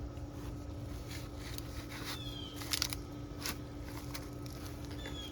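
Digging in garden soil to lift potatoes: a few short scrapes and crackles of dirt and dry potato vines being moved.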